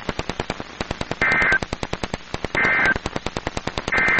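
Three short two-tone data bursts of a NOAA Weather Radio EAS/SAME end-of-message signal, about a second and a half apart, closing a Special Marine Warning. They sound over rapid, evenly spaced static clicks, about ten a second, from a badly staticky stream.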